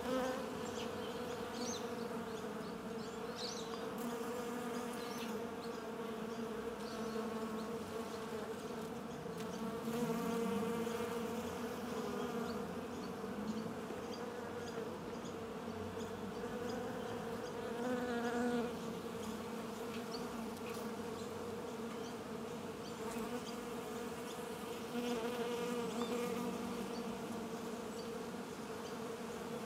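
Honeybees buzzing in a steady droning hum, swelling louder a few times.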